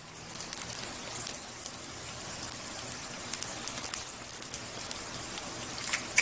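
Wontons deep-frying in hot oil in an electric skillet: a steady sizzle of many small crackles, with one sharp tap near the end.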